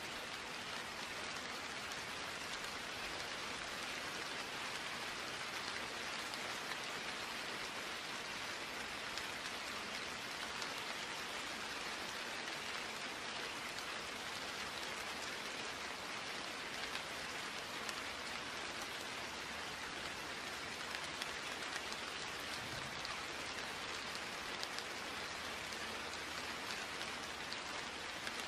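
Steady rain falling, an even hiss of rain with scattered small drop ticks.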